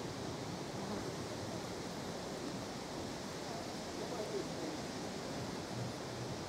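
Steady outdoor background noise, an even hiss with no distinct event, around an angler standing still at the water's edge.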